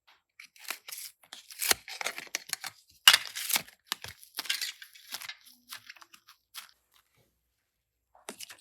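Irregular crisp crackling and tearing noises from materials being handled, a dense run of short bursts that stops about two-thirds through, then one more brief burst near the end.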